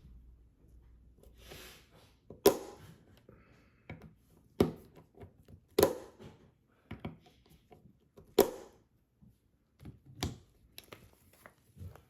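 Sharp clicks and knocks of small tools and metal parts being handled, about half a dozen louder ones a second or two apart with softer handling noise between, as the red dot's mounting screws on the Sig P211 slide are torqued down.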